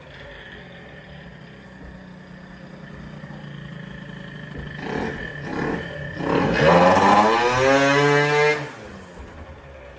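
Tuned 70cc two-stroke engine of a Piaggio NRG MC2 scooter, with a PWK 21 carburettor and Leovince ZX exhaust, idling steadily. It is blipped twice about five seconds in, then revved up with a rising pitch, held high for about two seconds, and dropped back to idle near the end.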